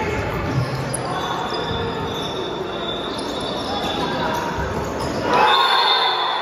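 Futsal game sounds in a large indoor hall: the ball being struck and bouncing on the court amid shouting players and spectators. The shouting rises sharply to a loud outburst about five seconds in.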